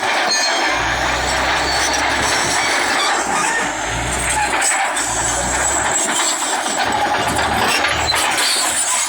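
Bulldozer running and working, its engine's low drone swelling and dropping away several times under a constant harsh, gritty noise.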